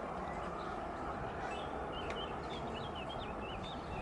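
A small bird twittering a quick run of short, high chirps about midway through, over a steady outdoor background hiss.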